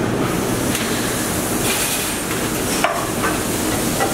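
Restaurant kitchen ambience: a steady hum and noise with scattered knocks and clatter of utensils and pans, the sharpest knock about three seconds in.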